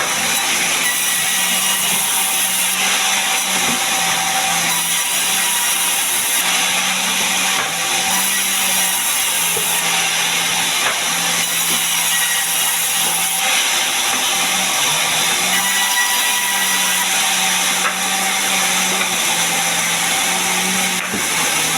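Sawmill saw running steadily as it cuts a gmelina log into planks: a continuous hissing rasp of the blade through the wood over a steady low machine hum.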